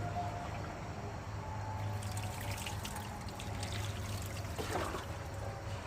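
Water trickling as it is poured over a car battery's corroded terminals to rinse them off.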